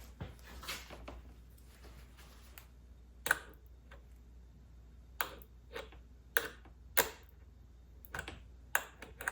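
A series of about eight short, sharp clicks as the starter motor's power cable is touched repeatedly to the battery terminal, with the solenoid bypassed. No motor running is heard between them: the starter motor does not turn.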